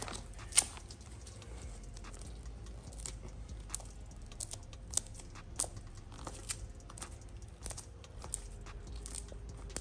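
Gloved hands pressing and tucking a leather cover's edge onto the plastic back of a hot-glued car door armrest: faint scattered clicks and crinkles, with a sharper click about half a second in.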